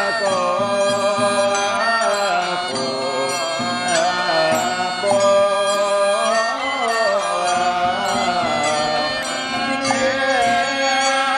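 Chinese Mahayana Buddhist monks chanting a sung liturgy together, the melody rising and falling without a pause.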